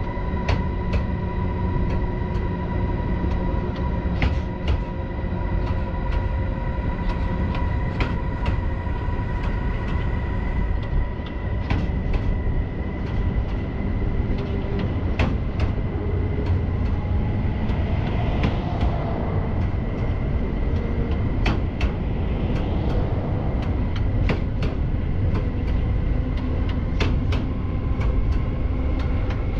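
Siemens Vectron electric locomotive running at speed with a freight train: a steady low rumble with a constant high whine over it and scattered sharp clicks from the wheels on the rails.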